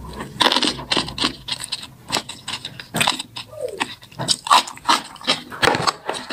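Close-up mouth sounds of eating kimchi and noodles: irregular wet slurps, chewing and lip smacks, several a second.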